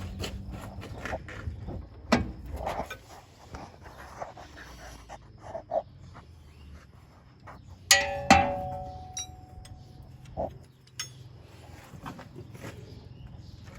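Metal tools clanking and tapping against the combine's hydrostat linkage parts: scattered sharp knocks, with the loudest two close together about eight seconds in, ringing briefly.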